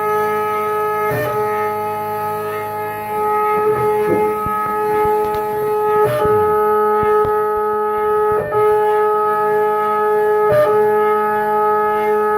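Large 3D printer's stepper motors driving ball screws during a print: a steady pitched whine with several overtones, breaking or shifting briefly about four times as the moves change, with short sliding pitches around four seconds in.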